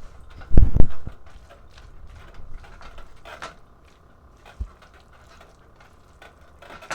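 Cookware being handled while pasta is dished up onto plates. Two heavy low thumps come a little over half a second in, followed by light clicks and scrapes of a utensil against the pan, and a single knock a little past the middle.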